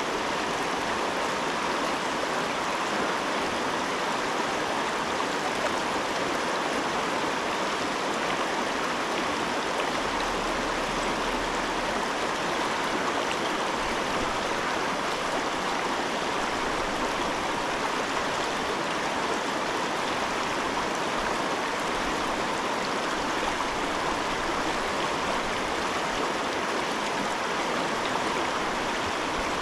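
River water rushing steadily over a rocky bed.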